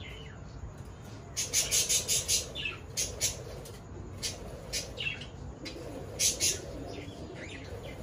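White Java sparrow singing: runs of short, high, chirping notes, in a quick cluster about a second and a half in and again near six seconds.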